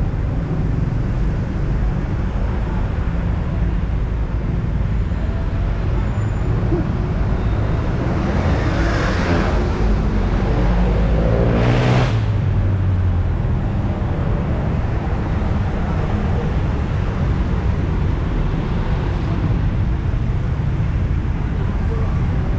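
Steady city road traffic: a continuous rumble of engines and tyres, with one vehicle passing close by about ten to thirteen seconds in.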